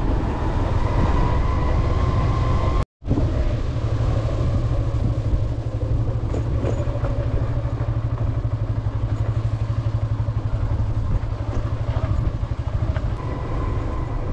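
Motorcycle engine running steadily at low speed, heard from on the bike as a low pulsing rumble. The sound cuts out completely for a moment just under three seconds in.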